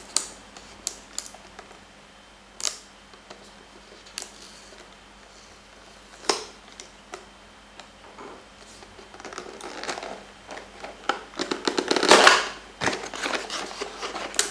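Retail CPU box being unpacked by hand: scattered sharp clicks and taps of cardboard and plastic packaging, then a burst of rustling and crinkling about three quarters of the way in.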